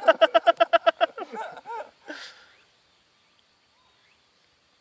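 A bird's loud, rapid chattering call of about nine notes a second in the first second, ending in a couple of rising-and-falling notes, then fading to faint chirps.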